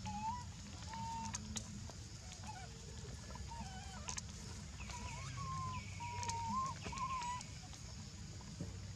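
Baby long-tailed macaque whimpering: a string of short, thin, wavering high calls, busiest around the middle and stopping about three-quarters of the way through.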